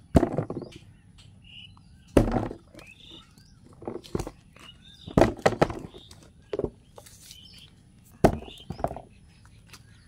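Irregular thumps and rustles of footsteps and handling on damp soil, about seven in all, with faint bird chirps between them.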